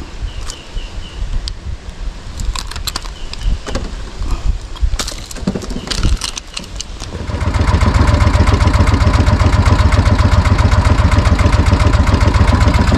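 Scattered knocks and clicks on a small fishing boat, then about seven seconds in the boat's engine starts and runs steadily with a fast, even beat.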